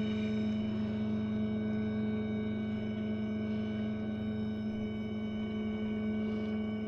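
200-watt electric boat motor running at a constant speed: a steady low hum with fainter higher whining tones over it.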